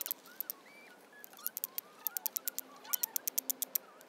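Steel striker scraped hard against a rock to throw sparks, making quick runs of sharp, high clicks in several short bursts.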